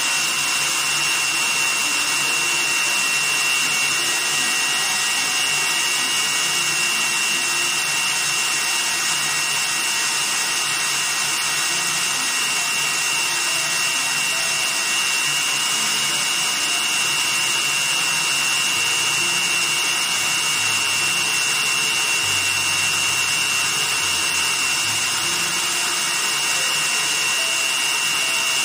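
Electric stand mixer running steadily, its beater whipping cake batter in a stainless steel bowl, with a steady high whine over the motor noise.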